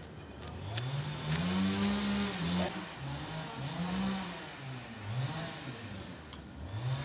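A motor vehicle engine revving up and dropping back several times.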